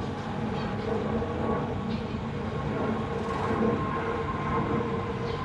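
Steady, even rumbling background noise, with a couple of faint short zebra finch calls over it.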